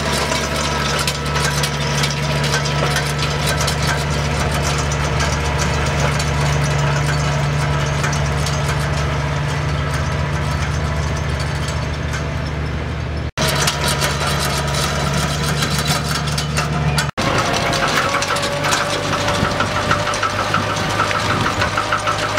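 Compact tractor engine running steadily as it pulls a two-stage roller crimper over a pea cover crop. The sound breaks off and picks up again twice, and near the end a fast rattle joins in over the engine.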